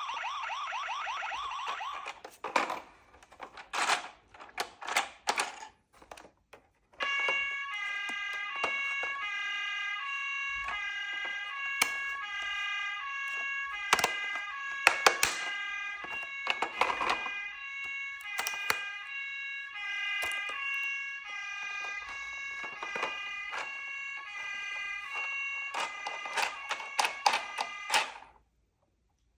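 Toy emergency vehicle's electronic siren. It opens with a fast wavering wail, then gives way to a run of sharp clicks and knocks. About seven seconds in, a stepped electronic siren tune of alternating tones starts and runs on, broken by more clicks, and cuts off suddenly near the end.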